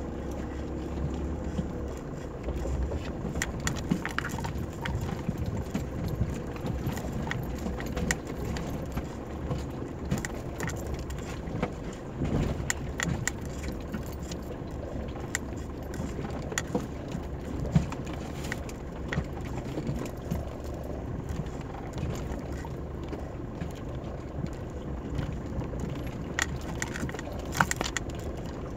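Mitsubishi Pajero Mk2 off-roader running slowly over a rocky dirt track, heard from inside the cab: a steady low engine hum with frequent knocks and rattles from the bodywork and loose items as it bumps over stones, one louder knock a little past halfway.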